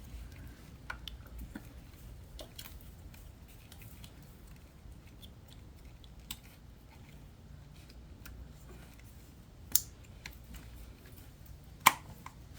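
Scattered light clicks and taps of hand tools and coil-pack hardware as the 10 mm coil-pack hold-down bolts are snugged down, with two sharper clicks near the end.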